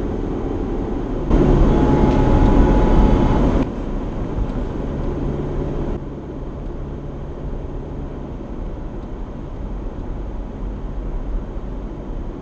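Car driving, with steady road and engine noise heard from inside the cabin. A louder, steady-pitched sound starts suddenly about a second in, lasts about two seconds and stops abruptly.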